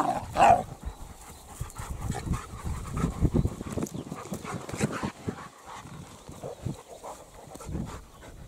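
Two dogs play-wrestling and rolling in loose dirt: irregular scuffling and dog breathing noises.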